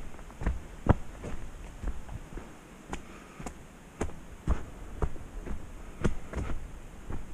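Footsteps of a person walking down a dirt mountain-bike trail, a dull thud at each step, about two steps a second in a slightly uneven rhythm.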